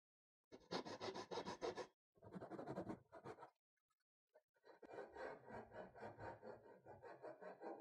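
A fine-toothed hand saw cutting a small piece of wood in quick, short strokes. There is a burst of about a second and a half, then two shorter bursts, then a longer run of strokes from about five seconds in.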